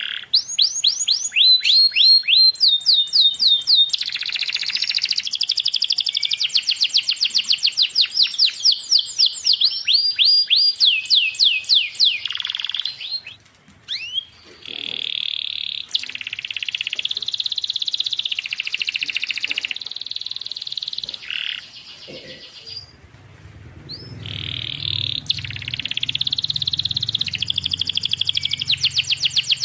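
Domestic canary singing a long, fast song of rapidly repeated trilled phrases, pausing briefly twice. A low hum sits under the song in its later part.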